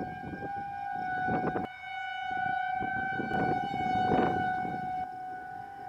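Outdoor tornado warning siren sounding one steady tone that slowly swells and fades in loudness, with gusty low noise underneath.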